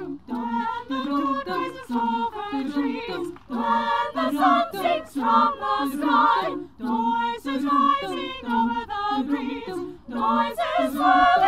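Community choir singing in several voices in harmony, over a short low figure that repeats steadily underneath.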